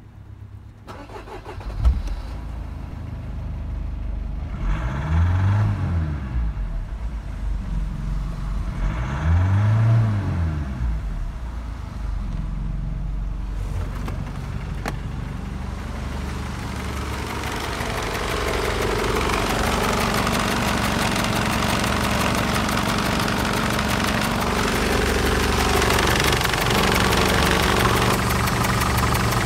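Mercedes-Benz OM611 2.2 CDI four-cylinder diesel engine of a W210 E-Class starting about two seconds in, then idling. It is revved briefly twice, rising and falling each time. From about halfway through it idles steadily and sounds louder and closer, as heard from the open engine bay.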